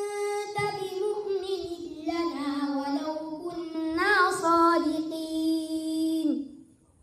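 A young boy reciting the Qur'an in a melodic chant, one phrase of long held notes with a wavering run about four seconds in. The voice stops near the end.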